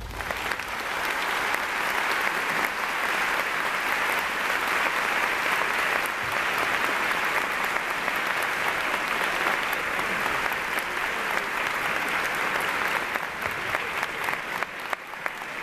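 Large audience applauding, starting at once and running steadily, thinning into scattered claps near the end.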